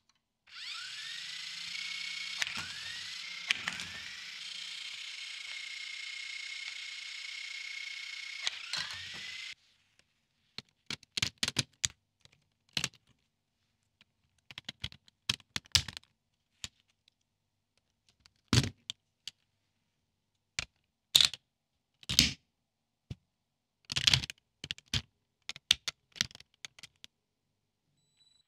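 A small electric motor runs with a steady whine for about nine seconds, the pitch rising as it spins up and falling as it stops. Then come scattered sharp clicks and snaps of Lego Technic plastic parts being pressed together and handled, some loud.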